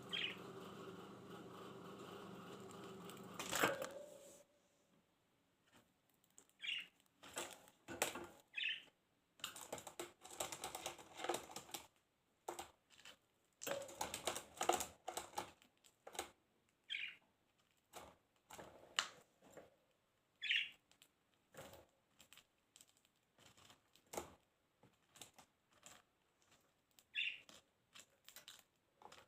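Pet budgerigars making irregular clicks and scratches, with short chirps every few seconds. For the first few seconds a steady hum lies underneath, ending with a sharp knock.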